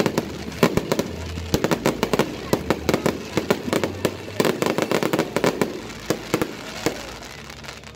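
Aerial fireworks going off in quick succession: a dense run of sharp bangs and pops, several a second, that thins out and fades in the last couple of seconds.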